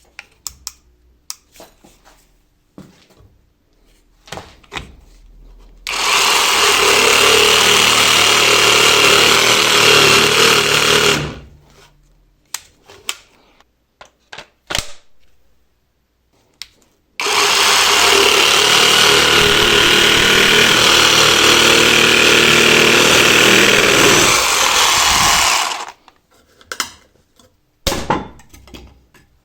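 Cordless jigsaw cutting in two runs, about five seconds and then about eight seconds, each starting and stopping abruptly. Short clicks and knocks of handling come before, between and after the cuts.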